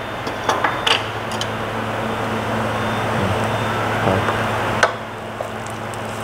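Food frying in a steel pot on a gas stove while it is stirred with a wooden spatula, which knocks against the pot a few times, over a steady low hum.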